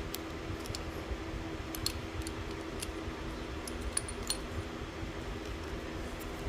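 Small metal engine parts clicking and clinking now and then as they are handled, a few light separate taps, over a steady low hum.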